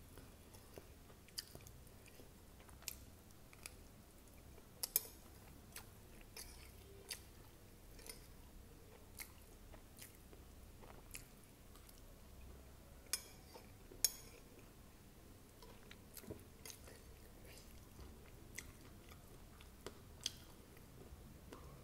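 Close-miked chewing of poha (flattened rice), with irregular sharp wet mouth clicks and smacks; two louder clicks come about five and fourteen seconds in.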